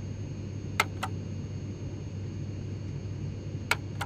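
Airbus A320 APU master switch and APU start pushbutton being pressed on the overhead panel: two pairs of sharp clicks about three seconds apart. Under them runs a steady low flight-deck rumble.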